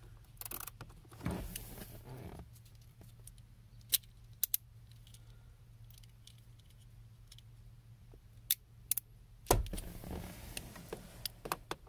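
Light metallic clicks and clatter of a small socket and finger ratchet being handled, with a few sharp clicks and some shuffling movement, over a faint low hum.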